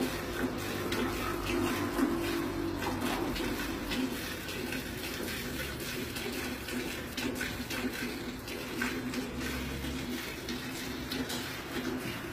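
Milk squirting into a metal pail during hand milking, a quick run of repeated squirts hitting the milk already in the pail.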